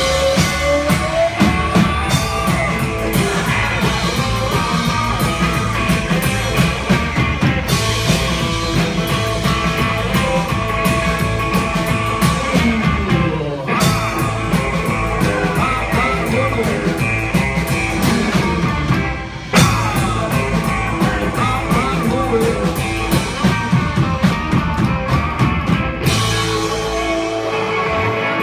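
Live rockabilly band playing: electric hollow-body Gretsch guitar, upright double bass and drum kit, with guitar lines sliding in pitch. Near the end the high cymbal wash falls away and the sound thins to guitar and bass.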